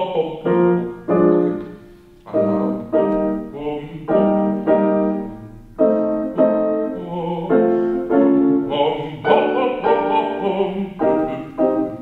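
Piano music: full chords struck in a steady rhythm, about two a second, each one ringing and fading before the next.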